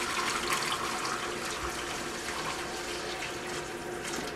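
Tap water running steadily into a container, filling it with water for a home canner, with a faint pitch rising as it fills.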